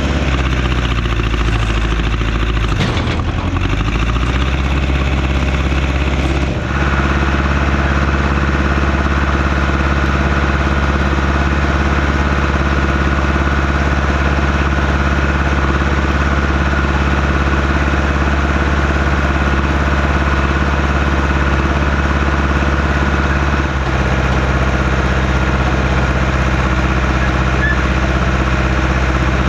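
Engine of a working loader running steadily. Its speed shifts in the first few seconds, then it holds an even note.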